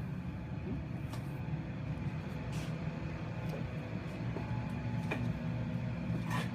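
A steady low mechanical hum on a building site, with a few scattered knocks and clicks.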